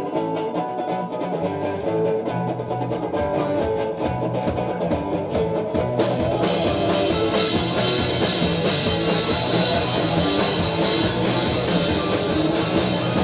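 Live rock band playing an instrumental intro: a guitar riff over regular cymbal ticks, with the bass coming in about a second and a half in. About six seconds in, the full band crashes in with loud cymbals and distorted guitar.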